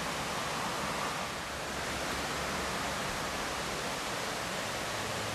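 Steady rush of a flowing mountain river, an even wash of water noise with no change.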